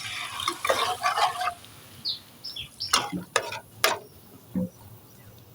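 Water added to spiced masala frying in a hot kadai, sizzling for about the first second and a half, then a few sharp knocks of a spatula against the pan around the middle.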